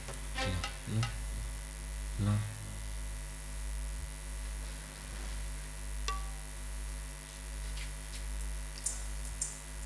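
A few scattered notes from the stage band's instruments in the first couple of seconds, then a lull filled by a steady low hum from the sound system, with occasional faint clicks and ticks.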